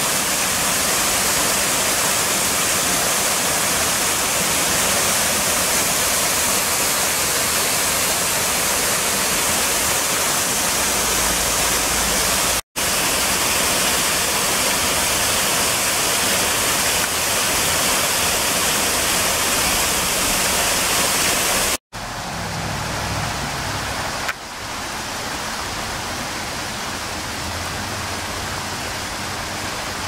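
Small creek waterfall pouring over a rock ledge into a pool: a steady rush of falling water. It drops out for an instant twice, and after the second break, about twenty-two seconds in, it comes back quieter and less hissy.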